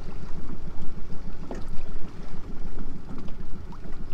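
Boat motor running at low speed, a steady low rumble.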